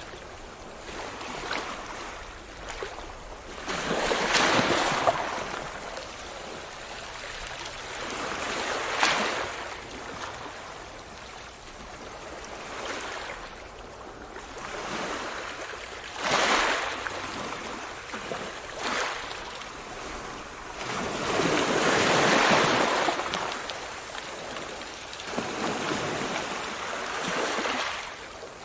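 Ocean surf: waves breaking and washing in one after another. Each is a hiss that swells and fades over one to three seconds, every few seconds.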